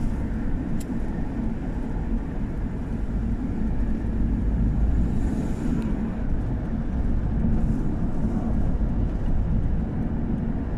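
Steady engine and tyre rumble heard from inside a moving car.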